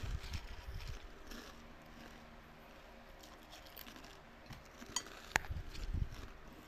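A pet biting and chewing watermelon: soft, wet low bites, with a couple of sharp clicks a little after five seconds in.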